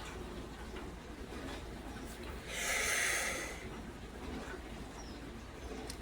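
A person's loud breath through the nose, a snort lasting about a second, near the middle, over faint room noise.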